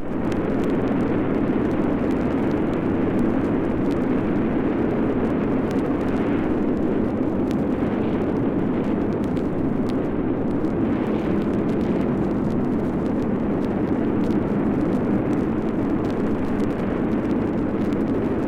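Steady, deep rumbling roar from a disaster sound-effects record, starting abruptly and holding level without breaks.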